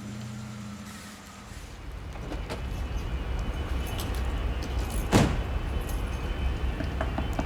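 Low, steady motor-vehicle rumble that builds up over the first two seconds, with scattered clicks and one sharp knock about five seconds in.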